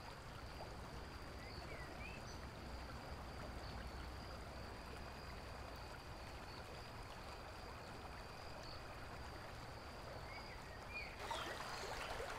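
Faint, steady outdoor ambience with a thin high steady tone and a few short high chirps. About eleven seconds in, the brighter splashing of a small creek running over rocks comes up.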